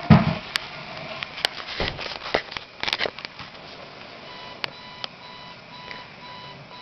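Several knocks and bumps in the first three seconds, the loudest a dull thump at the start. About four seconds in, an electronic alarm beeping begins: short, steady beeps repeating about twice a second.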